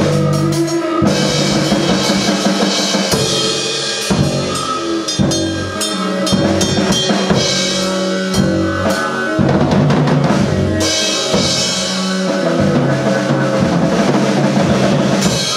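Drum kit played busily in live improvised music, snare and bass drum hits with spells of cymbal wash, over sustained low notes from the rest of the band.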